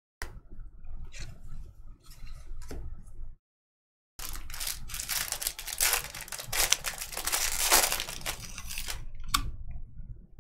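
Trading cards being flipped and shuffled by hand, then, after a brief dropout, a silver foil Bowman Draft jumbo pack wrapper being torn open and crinkled for about five seconds, the loudest part.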